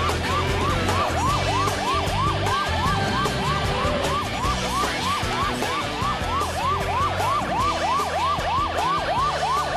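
Police siren in a fast yelp, rising sweeps about three a second, from the sheriff's patrol vehicle signalling a car to pull over; it cuts off near the end. Background music with a steady beat plays underneath.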